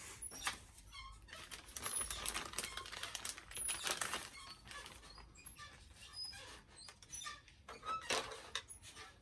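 Rustling and crinkling of doll packaging being handled, with scattered small clicks and taps.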